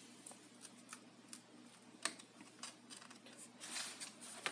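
Light, scattered clicks and taps of plastic as a Lenovo laptop's case and back cover are handled, with one sharper click about two seconds in and a short run of clicks near the end.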